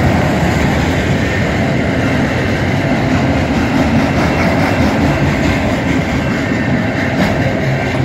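Union Pacific mixed freight train's cars rolling past, a steady loud rumble of steel wheels on the rails.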